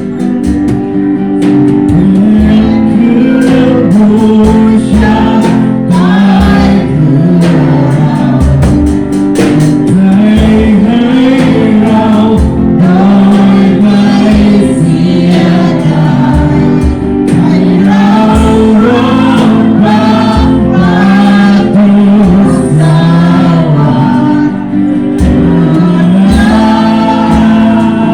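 Gospel-style worship music: a group of voices singing a melody over amplified band accompaniment, loud and continuous.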